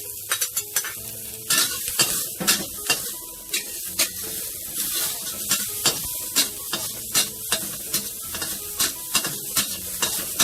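Chopped shallots sizzling in hot oil in a pan. A spatula taps and scrapes the pan at an irregular pace as they are stir-fried until fragrant.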